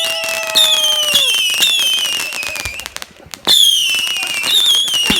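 Whistling fireworks going off in quick succession: shrill whistles that start sharply and fall slightly in pitch, over a steady crackle of small pops. About halfway through the whistles stop for a moment, then a new run starts.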